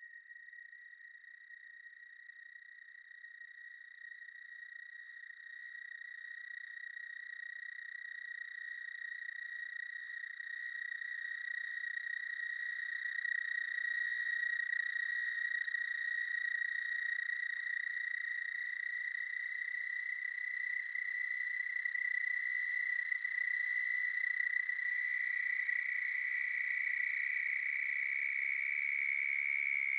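Sustained high electronic tone that swells slowly louder and edges up in pitch, with a second tone joining just above it about three quarters of the way through.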